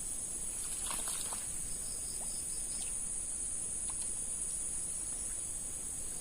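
Steady, high-pitched chorus of insects, crickets or cicadas, droning without a break, with a few faint short chirps and a brief cluster of clicks about a second in.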